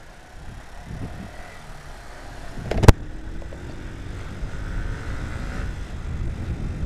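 Motorcycle engine and wind rumble heard from the moving bike, growing louder as it picks up speed, with the engine note rising. A single sharp knock, the loudest sound, about three seconds in.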